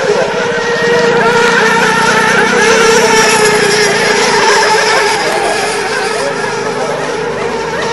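Radio-controlled racing power boats running flat out, their small engines holding a steady high-pitched whine, several pitches overlapping, over a hiss of spray.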